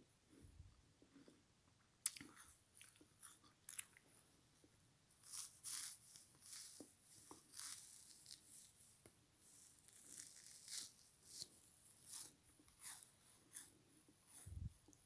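Frozen kitchen sponge being chewed: a run of short, crisp crunches, a few a second, starting about two seconds in.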